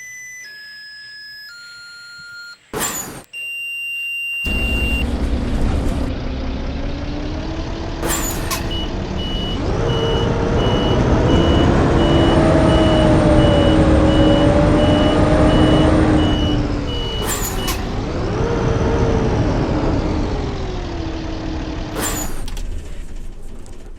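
A short run of electronic chime tones stepping down in pitch, then the Blue Bird school bus engine starts about four seconds in and runs loudly, its pitch rising and settling. A fast, steady warning beep sounds through the middle of the run.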